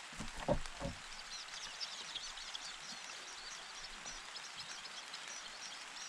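Shrike nestlings begging: rapid, thin, high-pitched chirping that builds from about a second in as an adult shrike arrives at the nest. A few soft thumps sound in the first second.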